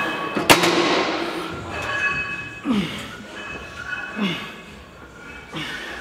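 Reps on a plate-loaded leg press: the loaded sled runs along its rails about every second and a half, with one sharp metal clank about half a second in.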